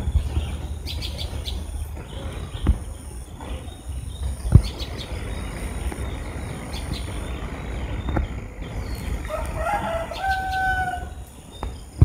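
One drawn-out bird call about ten seconds in, wavering at first and then held for about a second. Under it runs a steady low rumble, with a couple of sharp knocks earlier on.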